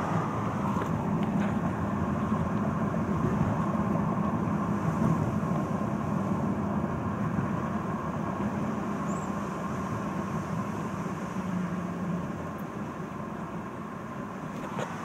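Car cabin noise while driving: a steady engine and road rumble heard from inside the car, easing off a little near the end.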